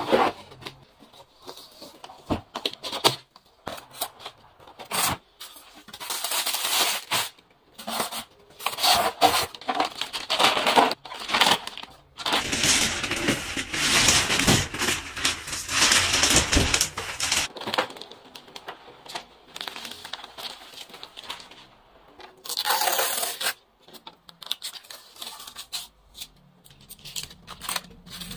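Packaging being handled during an unboxing: cardboard box flaps and contents scraping and knocking, then a large plastic bag rustling and crinkling as it is pulled up out of the box, loudest for several seconds near the middle. Near the end, shipping tape is peeled off the printer's plastic body.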